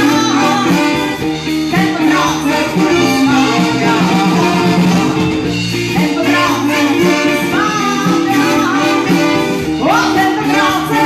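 Live brass band with drum kit and saxophone playing an upbeat song, with a woman singing into a microphone.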